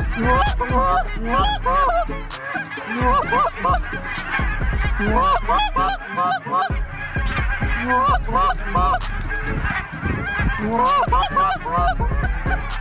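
A flock of lesser Canada geese honking, many short calls overlapping in bunches with brief lulls between them.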